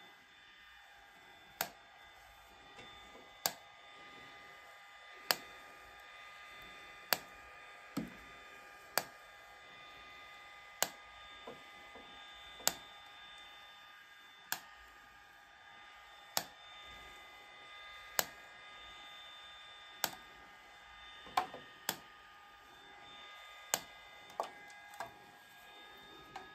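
Handheld IPL hair-removal device flashing against the skin of a leg. Each flash is a sharp click, about one every two seconds, with a few quicker ones near the end, over a faint steady high tone.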